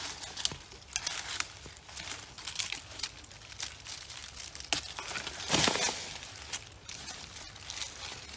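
Dry leaves and twigs rustling and crackling as someone moves through brush close by, with irregular snaps and a louder rustle about five and a half seconds in.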